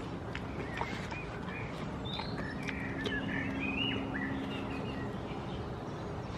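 Small birds chirping in quick, short, rising and falling calls, with a few crisp crunches as a goat bites into a pear held in a hand.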